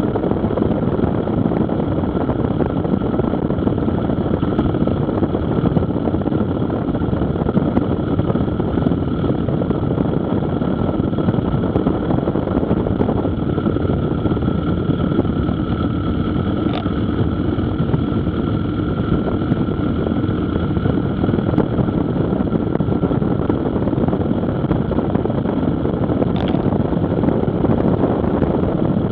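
Motorcycle cruising at a steady speed on open highway: the engine's steady running mixed with wind rushing over the microphone, with no change in pace.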